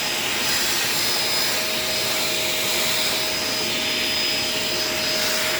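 Shark LA702 Lift-Away upright vacuum cleaner running steadily: a constant motor whine over the rush of air.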